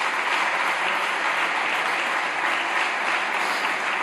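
Steady applause from many seated members of parliament clapping their hands.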